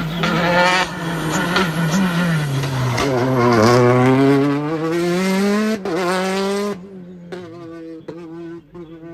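Rally car engine passing close on a special stage: its note falls to a low about three seconds in, then climbs as the car accelerates away, with a brief break near six seconds. It then fades quickly as the car goes off into the distance.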